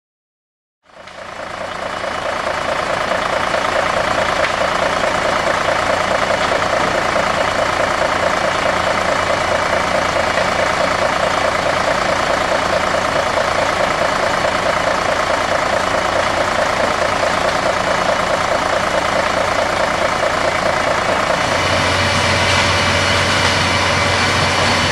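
eep ZSH 30 cylinder screw wood chipper running with its drive engine, a steady, loud mechanical drone with a fine rapid churning texture, fading in about a second in. About three-quarters through the sound shifts to a deeper hum with more hiss on top.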